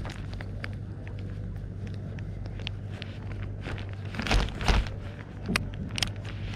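Wind gusting on the microphone over a steady low hum, with scattered clicks and knocks from handling a baitcasting rod and reel; two heavier buffets come a little over four seconds in.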